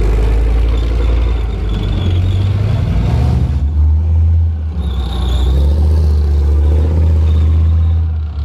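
Leopard 1 main battle tank's 10-cylinder MTU multi-fuel diesel engine running with a loud, steady low drone as the tank drives past on its tracks.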